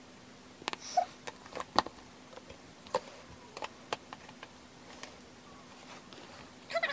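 Scattered light clicks and taps of a plastic toy playset and its pieces being handled, over a faint steady hum.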